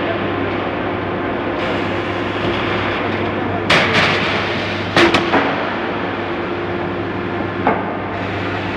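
Cut-to-length line for heavy steel plate running with a steady machine hum, broken by sharp metal bangs: a couple a little before halfway, a quick double strike just after, and one more near the end.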